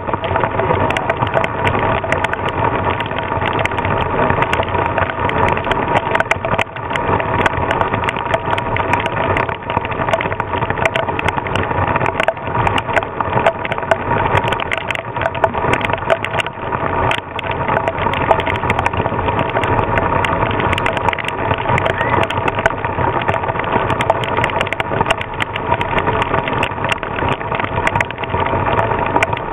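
Loud, steady, crackling noise of a squall: strong wind buffeting the microphone, mixed with heavy rain.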